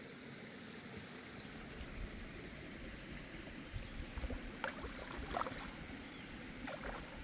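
Faint water sounds with a few small splashes around the middle, as a hooked smallmouth bass thrashes at the surface beside a kayak, over a low rumble of wind on the microphone.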